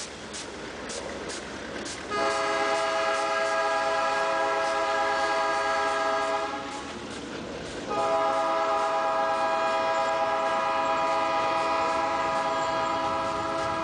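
Diesel locomotive air horn sounding two long blasts: the first starts about two seconds in and lasts some four seconds, the second starts about a second after it ends and runs on. Under and before them, the rumble of a passing freight train.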